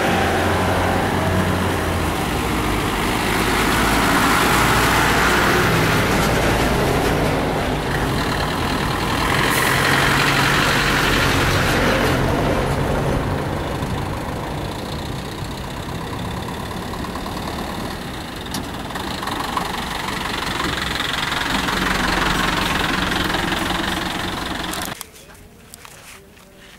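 A school bus's diesel engine runs close by as the bus drives off, getting louder and softer as it moves. It cuts off abruptly near the end, leaving faint background sound.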